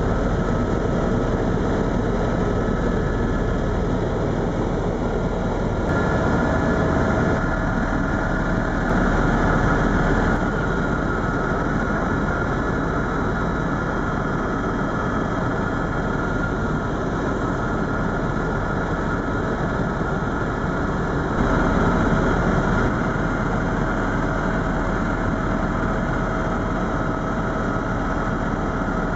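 Eurocopter EC130 Ecostar helicopter in flight, heard from inside the cabin: a loud, steady drone of turbine and rotors with a faint whine that shifts slightly a couple of times.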